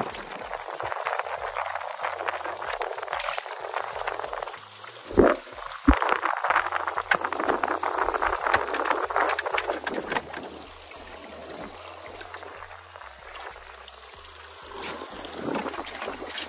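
Water splashing and trickling, with two sharp knocks about five and six seconds in.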